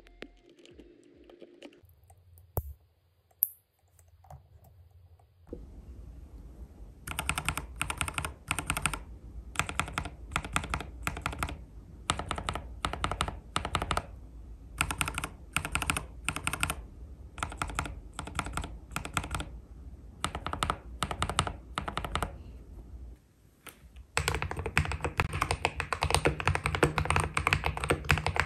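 For the first few seconds, faint handling clicks, with one sharp click about 3.5 seconds in. Then keys on a Keydous NJ80 mechanical keyboard with a steel plate, KTT Red Wine linear switches and PBT keycaps are pressed in short runs of a few strokes each, about a second apart; the switches are lubed with Krytox 105 and 205g0 and fitted with 58 g two-stage springs. A few seconds before the end this gives way to continuous fast typing.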